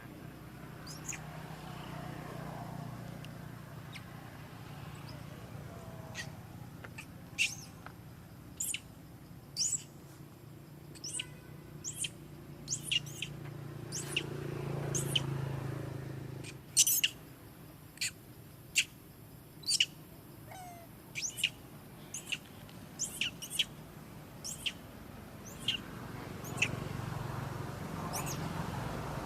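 Birds chirping: many short, sharp high-pitched chirps at irregular intervals, over a low steady rumble of background noise that swells twice.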